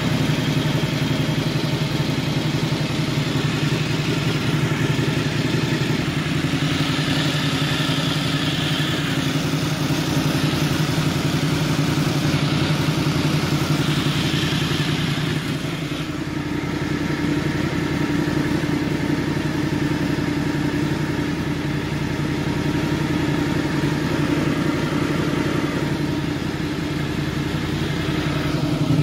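1988 Honda VFR750 RC24's 748 cc V4 engine idling steadily while its four carburettors are vacuum-synchronised and the idle mixtures adjusted. About sixteen seconds in, the idle note dips slightly and shifts.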